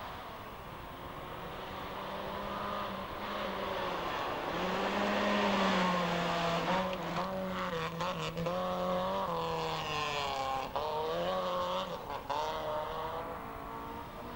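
Rally car at full throttle on a gravel forest stage, approaching, passing close by and going away, with gravel noise from the tyres. The engine note climbs and drops several times with brief breaks in the sound. It is loudest just before the car goes past.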